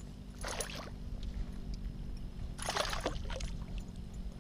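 Water splashing and sloshing around a kayak, with two short splashes about half a second and about three seconds in, over a steady low rumble.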